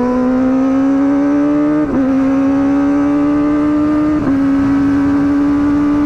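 Motorcycle engine pulling up through the gears: a rising engine note that drops twice as it shifts up, about two and four seconds in, then holds steady.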